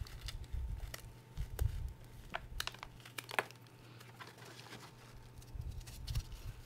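Hands squeezing and crumbling crushed gym chalk: soft powdery crunching with scattered small crackles and a few low thuds, quieter for a couple of seconds in the middle.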